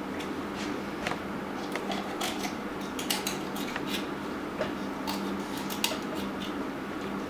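Irregular clicks and scrapes of blade work on a raw chicken as it is trimmed and butterflied, over a steady low hum.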